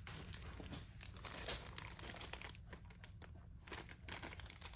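Crinkling, rustling and light clicks of small parts being handled while a turned crochet hook necklace kit is put together, with one sharper click about a second and a half in.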